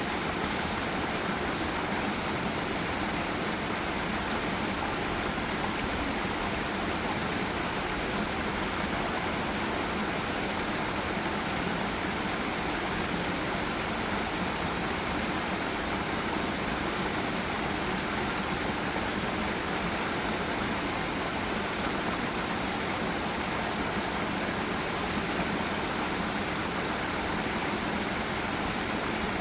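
Forest river and small waterfall: steady rushing of water.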